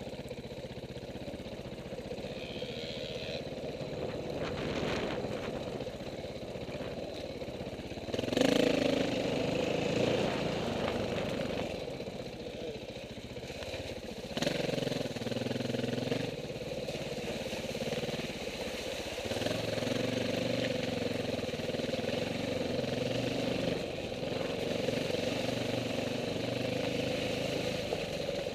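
Off-road dirt bike engines running, with one getting suddenly louder about 8 seconds in and another step up about 14 seconds in.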